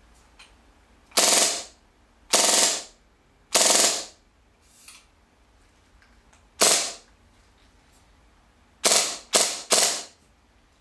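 Gas blowback airsoft machine pistol (HFC HG-203, an M11 copy on green gas) dry-fired on full auto in short bursts: seven rapid cracking bursts with the bolt cycling, the first four spaced out, the last three in quick succession near the end.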